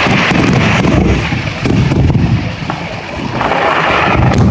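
Aerial fireworks shells bursting in quick succession, a near-continuous rumble of booms with sharp cracks. It eases off briefly about two and a half seconds in, then builds again.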